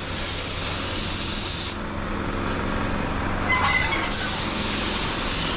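Air spray gun hissing as it sprays primer, in two passes: the spray stops a little under two seconds in and starts again about two seconds later. A steady low hum runs underneath.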